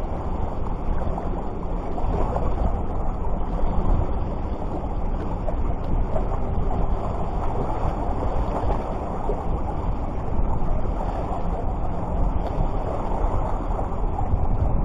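Steady rushing of wind on the microphone mixed with sea surf, with no distinct events.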